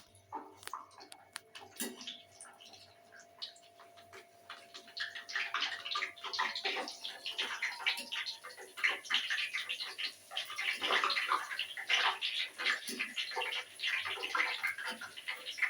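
Luchi dough frying in hot oil in a kadai: a crackling sizzle, sparse at first and growing dense and louder about five seconds in.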